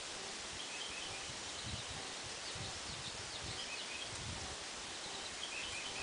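Small songbirds giving faint, short high chirps in three brief clusters over a steady outdoor hiss, with a few soft low thumps.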